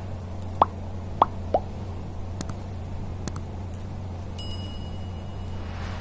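Three quick cartoon pop sound effects, each dropping in pitch, over a steady low electrical hum, followed by a few faint clicks.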